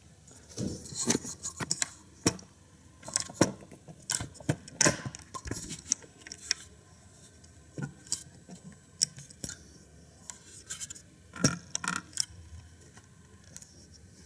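Scattered sharp clicks, knocks and short scraping rustles of handling noise close to the microphone, coming irregularly throughout with short quiet gaps.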